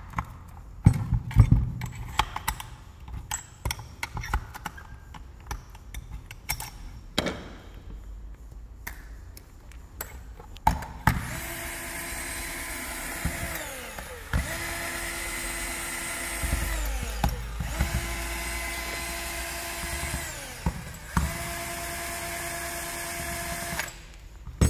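Clicks and knocks of tools and parts being handled, then a power drill run four times, about three seconds each, its whine falling away at the end of each run. It is backing out the four cylinder screws of a brushcutter engine.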